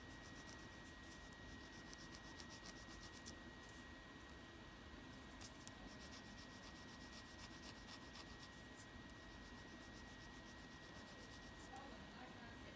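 Pencil scratching on paper in quick, faint shading strokes, dense for the first few seconds, then more scattered.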